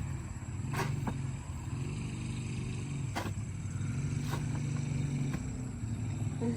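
An engine running steadily, with several sharp knocks heard over it at irregular moments.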